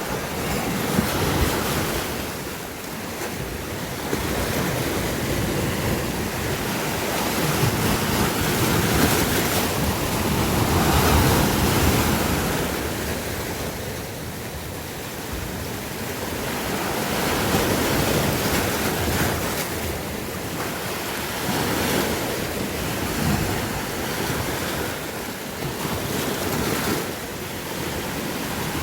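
Sea waves washing ashore in a continuous surf that swells and eases every few seconds, with wind buffeting the microphone.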